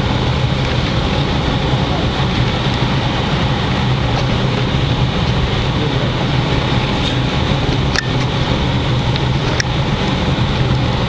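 PATH train heard from inside the car while it rolls slowly along the track: a steady low hum and rumble, with two sharp clicks about a second and a half apart near the end.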